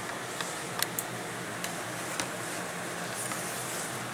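Pages of a hardcover book being handled and turned: a few faint clicks and a soft paper rustle about three seconds in, over a steady background hiss.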